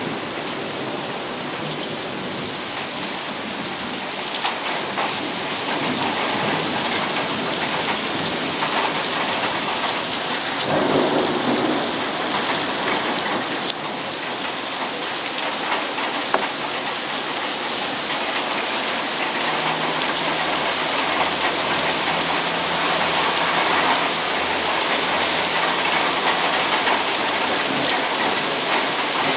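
Heavy rain pouring down in a thunderstorm, with a swell of thunder rumble partway through. A faint low hum joins in the second half.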